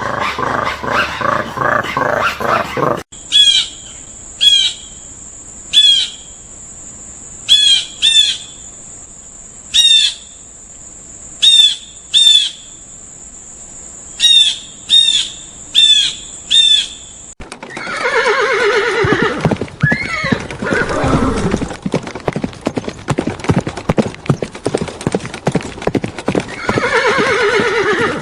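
A horse whinnying and neighing, repeated calls that rise and fall, in the last ten seconds or so. Before that come about fourteen short, sharp high calls spaced roughly a second apart over a steady high hiss, and at the very start the tail of a dog's growling.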